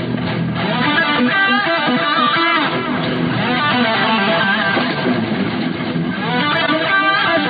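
Soundtrack music led by electric guitar.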